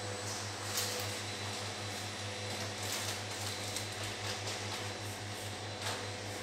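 Steady low electrical hum, with faint brief rustles and clicks of grocery packaging being handled and sprayed a few times.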